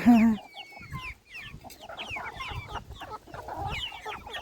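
A flock of chickens clucking as they feed, with many short, high, falling peeps overlapping throughout.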